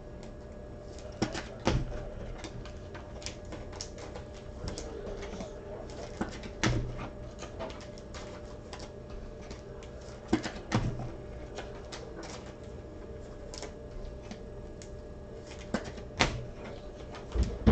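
Computer keyboard typing: irregular light key clicks, with a few louder knocks now and then over a faint steady hum.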